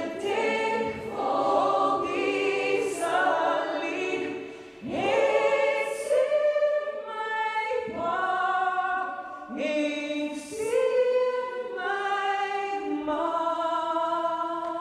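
Large choir of mixed voices singing an Afrikaans song in harmony, phrase by phrase, with short breaths between phrases about five and nine and a half seconds in.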